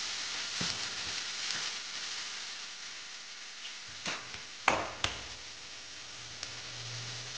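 Mixed vegetables sizzling in a nonstick wok, with a steady hiss. A spatula stirs them early on, and there are a few light knocks about four to five seconds in, as sauce is poured from bottles.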